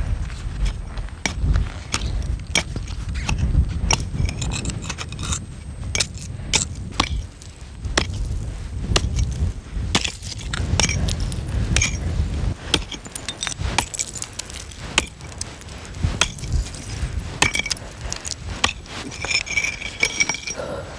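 A hatchet chopping into clear lake ice: irregular, sharp strikes, with ice chips clinking and shattering.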